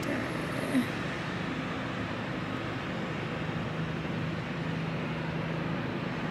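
Steady low hum of an idling vehicle engine, with a short faint blip about a second in.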